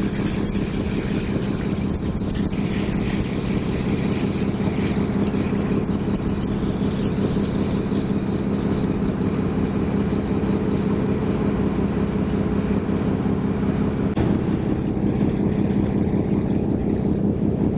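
Car ferry's engine running steadily, a constant low drone with no change in speed.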